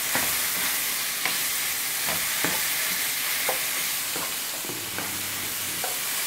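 Beef cubes sizzling as they brown in a hot frying pan: a steady hiss broken by a few short, sharp clicks.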